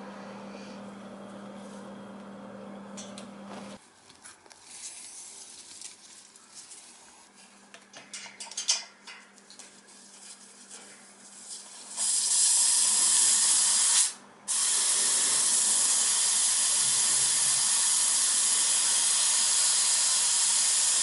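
Trapped air hissing steadily out of a cast iron radiator's bleed valve opened with a radiator key, as the refilled hot-water heating system is bled of air. The hiss starts about halfway through, stops for a moment and then resumes. It follows a few light handling clicks.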